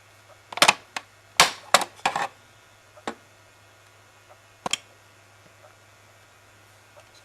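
Hard plastic parts of a Hoover WindTunnel upright vacuum being handled: a quick run of sharp clicks and knocks in the first couple of seconds, then two more single clicks, over a faint steady mains hum.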